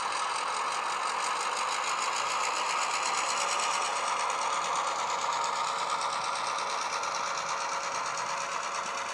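Diesel engine sound from a LokSound DCC sound chip in a Murphy Models Class 141/181 model locomotive, played through its sugar cube and mega bass speakers as the model runs. A steady engine note with a fast, even beat.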